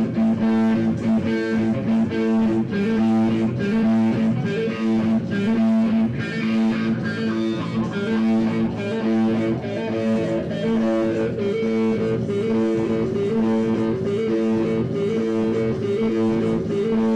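Live jazz band playing, with guitar prominent over bass and a steady beat.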